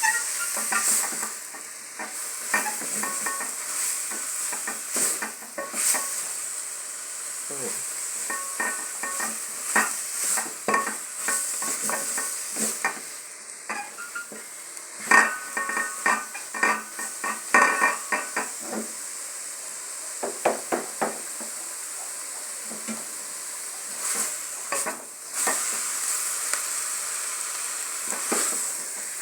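Chopped greens frying in oil with tomatoes and onions in a pan, giving a steady sizzle, while a metal spoon scrapes and clinks against the pan in spells of stirring, busiest in the middle of the stretch.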